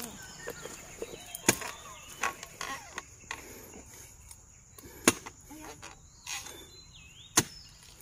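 Three sharp chopping strikes a few seconds apart, over a steady high insect drone.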